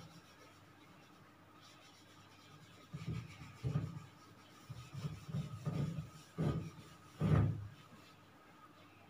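A whiteboard being wiped clean by hand: a run of short rubbing strokes that begins about three seconds in, after a quiet stretch, the last one, about seven seconds in, the loudest.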